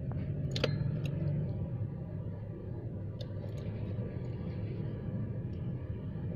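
A steady low engine hum, with a few light clicks.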